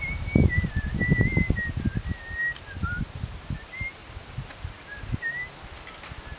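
A slow, wandering whistled tune of held notes and small slides, strongest in the first three seconds and then in short snatches. Underneath are rustling and soft knocks from picking among the vines, and a steady, fast, high insect chirring.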